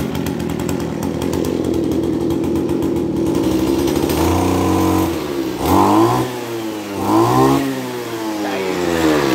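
AGRIP A270H brush cutter's 27 cc two-stroke engine idling steadily, then revved hard to high throttle twice, dropping back toward idle after each rev.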